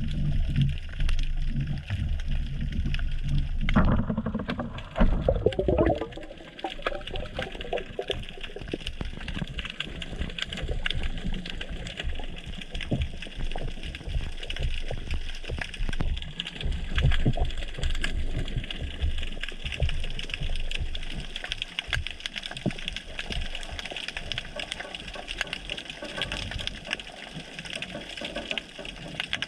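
Underwater sound through a GoPro's housing: a low rumble of water at first, a short spell of bubbling gurgles about four to six seconds in, then a steady crackle of small clicks with soft low thumps.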